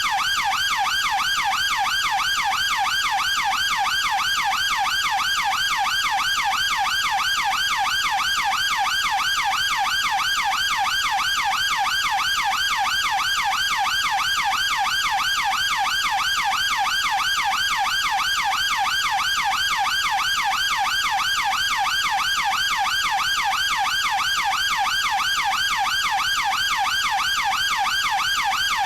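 Chinese police siren sounding a fast yelp, its pitch sweeping up and down several times a second, steady and unbroken.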